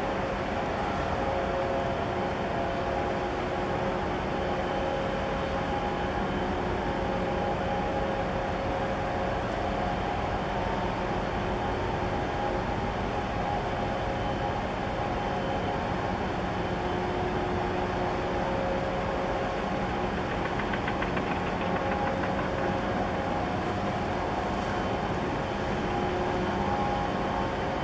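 The ship's machinery, with its engines, generators and ventilation fans, giving a steady drone with a low hum and several held tones as the 400 m container ship HMM Stockholm passes close by.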